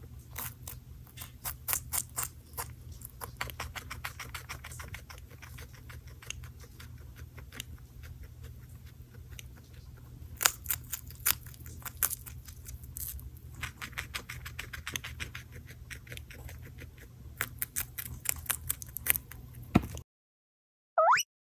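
Guinea pig chewing a slice of green bell pepper: irregular crisp crunches, some in quick runs, over a steady low hum. Near the end the sound cuts off and a short rising sound effect plays.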